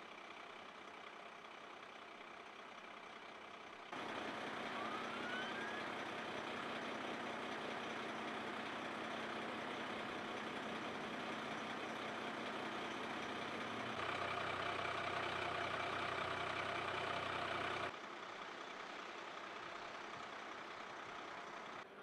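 Vehicles running at a roadside: steady engine and road noise that jumps abruptly in level about four seconds in and drops again near eighteen seconds. A steady engine hum is loudest between about fourteen and eighteen seconds, and a brief rising chirp sounds about five seconds in.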